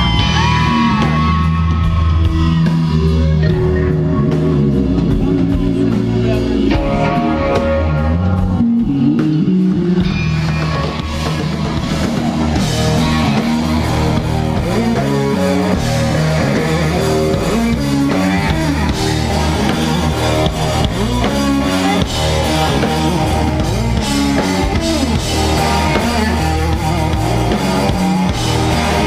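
A rock trio playing live: a Fender Stratocaster electric guitar over bass guitar and a drum kit.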